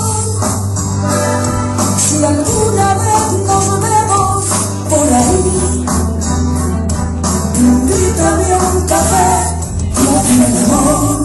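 Music: an instrumental passage of a Latin pop ballad, with a melody line over steady bass and a light, tambourine-like percussion rhythm.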